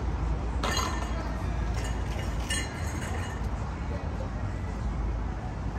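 City street ambience: a steady low rumble, with a few short clinks about a second in and again about halfway through.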